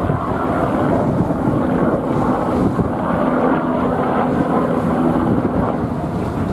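Eurocopter EC155 B1 (Airbus H155) helicopter flying over, heard as a loud, steady drone of rotor and turbine noise with a faint steady hum.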